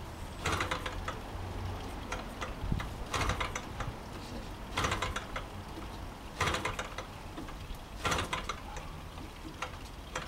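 Propeller of a large-scale model aircraft engine flicked over by hand about every second and a half. Each flick turns the engine over with a short burst of rapid clicking, but it does not fire: the engine is being turned over to draw fuel through before starting.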